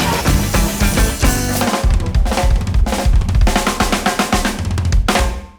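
Band music driven by a drum kit playing a busy beat, with kick, snare and rimshot hits over a heavy bass line. It drops away abruptly just before the end.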